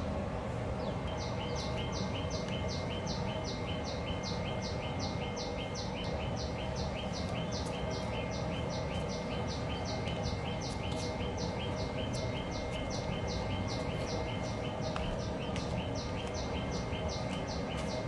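A bird repeating a short two-part chirp, very evenly, about two to three times a second, over steady background noise with a low hum.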